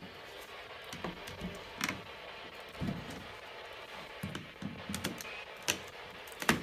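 Scattered clicks and light knocks of a small metal laundry chute door being fiddled with as someone tries to open it; it stays shut. The sharpest click comes near the end.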